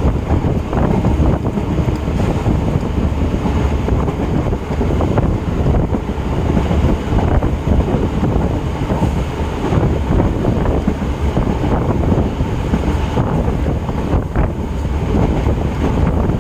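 Running electric multiple unit (EMU) local train heard from on board: a steady loud rumble of wheels on the track, with wind buffeting the microphone.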